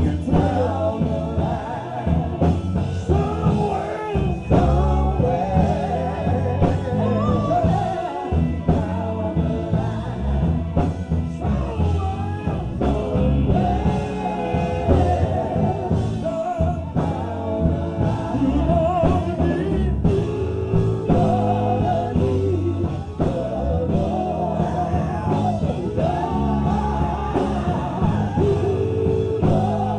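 Live gospel singing with a full band: voices carry the melody over drums and a pulsing bass line.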